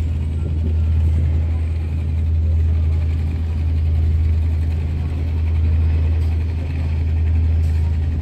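The KMP Siginjai ferry's engines droning: a steady, deep hum that swells and fades every second or two.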